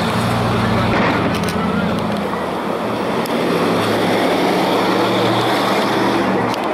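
A motor vehicle's engine running, a steady low hum under a rushing noise.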